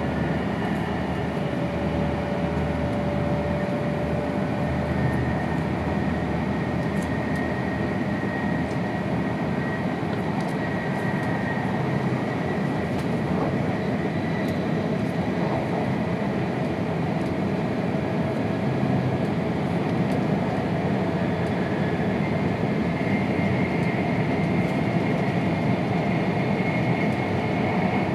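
Cabin noise inside a Tohoku Shinkansen train running at speed: a steady rush of running and wind noise, with faint whines that climb slowly in pitch.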